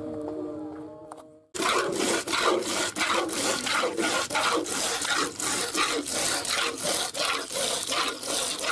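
A cow being milked by hand: streams of milk squirt into a plastic bucket of frothy milk, a rhythmic hiss of about two to three squirts a second. A few steady tones fade out in the first second and a half, before the milking starts.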